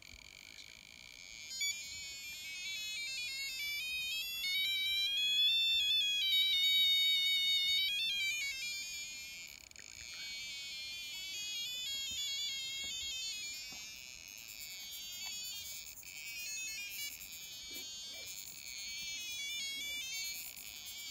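High-pitched electronic tones warbling and gliding up and down in pitch, like a ringtone, loudest about four to eight seconds in and continuing more faintly after that.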